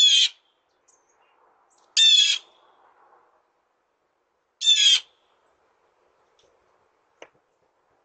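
Blue jay giving three short calls about two seconds apart, each under half a second, followed by a faint click.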